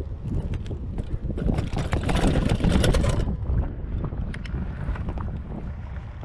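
Wind buffeting the microphone of a chest-mounted action camera as a mountain bike rolls down concrete steps and across asphalt, with scattered clicks and rattles from the bike. There is a louder, rougher stretch from about one and a half to three seconds in.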